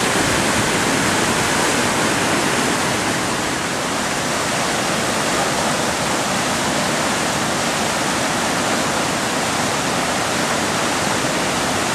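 Whitewater rushing steadily down an artificial slalom course and pouring over a concrete weir: a continuous, even roar of churning water.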